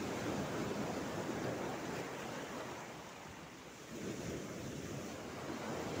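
Small Red Sea waves washing in over a pebble and coral-rock shore, easing off about three seconds in and surging again about a second later.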